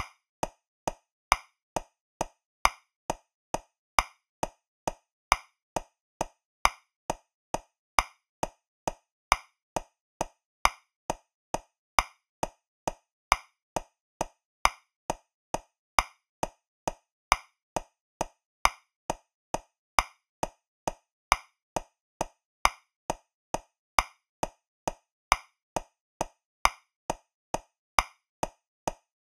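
Metronome clicking steadily at 135 beats per minute in 3/4 time, a bit over two clicks a second. Every third click is louder: the accented first beat of each bar.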